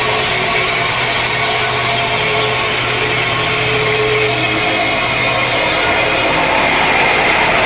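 Sawmill saw cutting through a teak log, a loud steady sawing noise. A little before the end the hum underneath stops and the sound changes.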